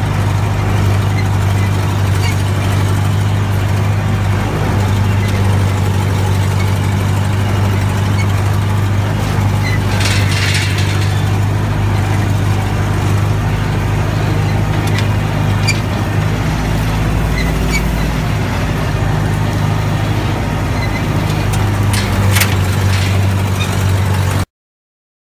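Engine of a vehicle towing a drag harrow, running steadily at a constant speed, with a few short rattles from the harrow frame and chains. The sound cuts off suddenly near the end.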